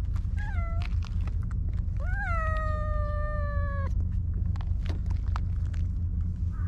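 Stray domestic cat meowing: a short meow, then about a second later a long drawn-out meow of nearly two seconds that rises and then slowly sinks. A steady low rumble runs underneath.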